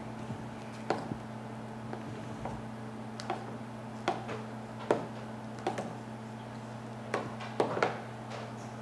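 A spoon tapping and clinking against the mixing bowl and muffin pan as batter is scooped into the muffin cups: about ten sharp, irregular taps, roughly a second apart, with several close together near the end. A steady low hum runs underneath.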